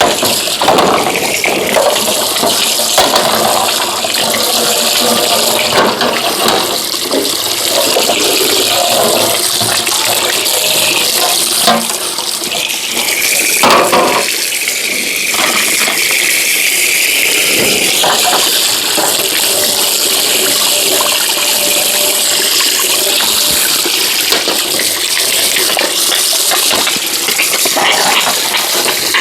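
Water running from a tap and splashing over refrigerator parts as they are washed by hand, with irregular knocks and clatter throughout.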